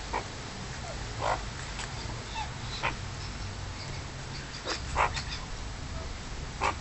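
Magpies giving short, scattered calls, several in quick succession about five seconds in, over a steady low hum.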